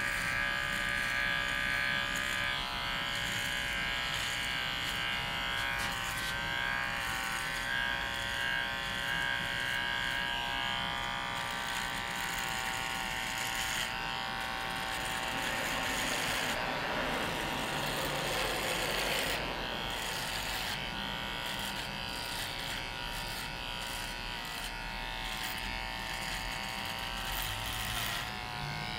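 Nose and ear hair trimmer running continuously with a steady electric buzzing whine, its tone growing rougher and wavering for a few seconds in the middle.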